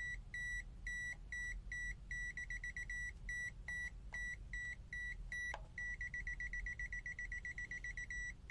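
A CZD FS898 digital multimeter's buzzer beeping in non-contact voltage (NCV) mode, warning that it senses a live mains cable. The short, high beeps come about three a second and twice quicken into a rapid run, once briefly and once for over two seconds near the end, as the detected signal changes.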